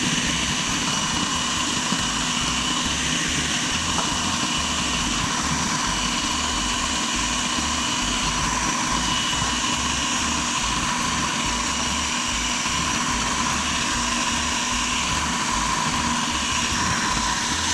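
Food processor motor running steadily, blending flour, brown sugar and chilled butter cubes into a crumbly topping.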